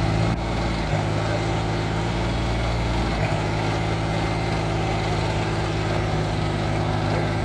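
Farm tractor's diesel engine running steadily under load, pulling a loaded trolley stuck in mud: a low, even drone that shifts slightly in pitch about one second and three seconds in.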